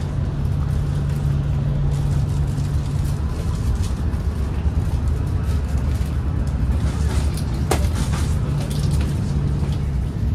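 Jakarta–Bandung high-speed train running at speed, heard inside the carriage as a steady low rumble with a low hum that fades out about three seconds in and returns near the end. A few light clicks come about eight seconds in.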